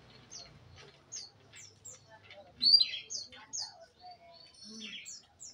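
Domestic canary singing: a series of short, high chirps, each sliding downward, with one louder chirp about halfway through that drops lower in pitch.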